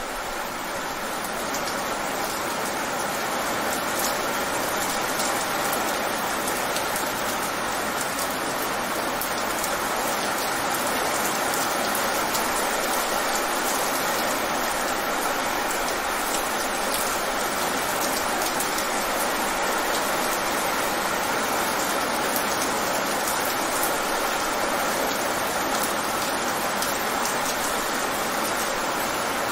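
Rain falling fast onto wet pavement: a steady splashing hiss with the fine patter of individual drops.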